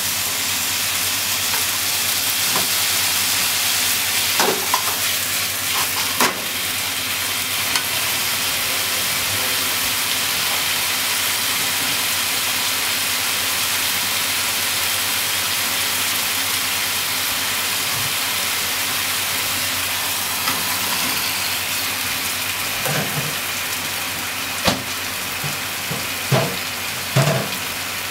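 Shimeji mushrooms and ground meat sizzling steadily in a frying pan, with a few knocks of the spatula against the pan. Near the end come several thuds and clacks as sliced potatoes go into the pan.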